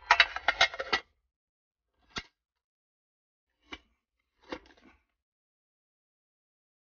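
Handling noises: a quick cluster of clicks and rattles lasting about a second, then three more short, separate clicks spread over the next few seconds.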